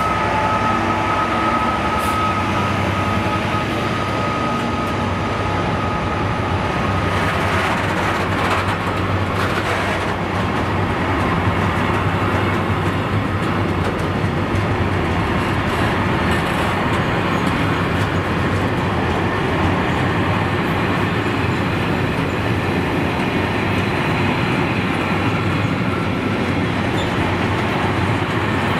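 Freight train hauled by a Class 66 diesel locomotive passing close by: the locomotive goes past first, then a long rake of box wagons rolls by with steady wheel-on-rail noise and rhythmic clickety-clack. A high steady tone fades out about seven seconds in.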